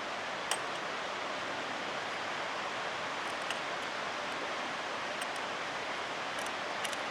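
Steady background hiss with a few small clicks from handling the chainsaw chain in the sharpener as a tooth is aligned, one a little sharper about half a second in. The sharpener's motor is not running.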